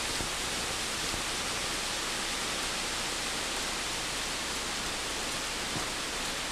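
Steady, even rushing hiss with no pitch or rhythm, holding the same level throughout.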